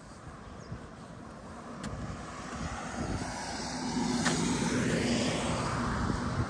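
A motor vehicle driving past on the road, its engine and tyre noise growing louder from about two seconds in and staying loud until it cuts off suddenly at the end.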